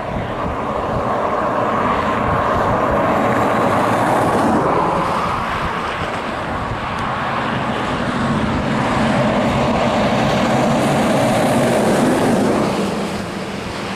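Wind buffeting the camera microphone: a loud rushing noise with a gusty low rumble, swelling twice for a few seconds each.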